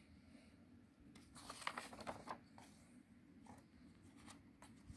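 A page of a picture storybook being turned by hand: a brief papery rustle about a second in, followed by a few faint taps.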